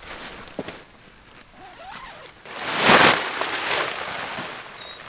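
Nylon tent fabric rustling, then a loud swish and flap about three seconds in as the tent's rainfly is swung up over the tent, trailing off into more rustling of the fly.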